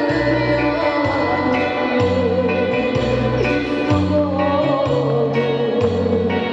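A woman singing live into a microphone over an instrumental accompaniment, holding long notes with a wavering vibrato while the bass line below her changes note about once a second.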